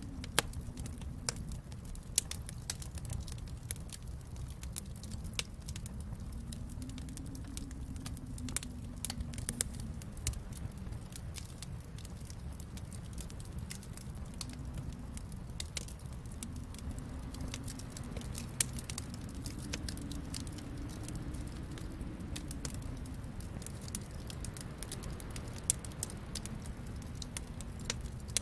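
Wood fire crackling in a fireplace: frequent small pops and snaps, now and then a sharper one, over a steady low rumble.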